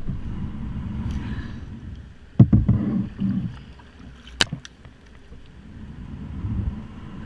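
Kayak being paddled on a river: uneven water swishing and sloshing from the paddle strokes, with a sharp knock about two and a half seconds in and another about four and a half seconds in.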